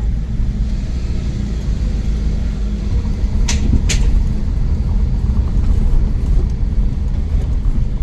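Car driving, heard from inside: a steady low road and engine rumble, with two sharp clicks about 0.4 s apart near the middle.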